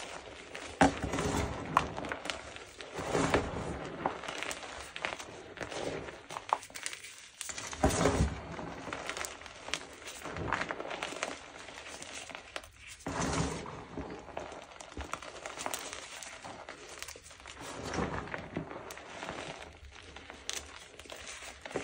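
Gym chalk mixed with cornstarch being crushed, giving crunchy, crackling squeezes in irregular bursts with sharp little snaps.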